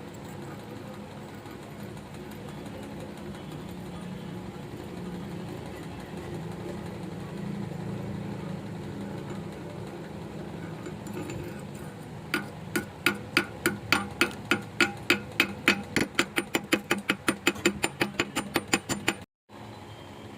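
A steady low hum, then about twelve seconds in a run of sharp knocks that start about a second apart and speed up to several a second, cutting off suddenly near the end.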